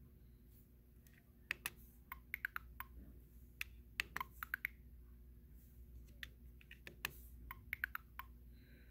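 Plastic buttons on a LEGO Spike Prime hub clicking as they are pressed, some single and some in short quick runs, over a faint steady hum.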